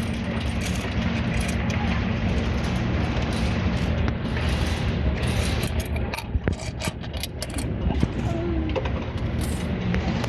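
Coinstar coin-counting kiosk running over a steady low motor hum, with coins clattering and clicking through its sorting drum, the clicks thickest about halfway through.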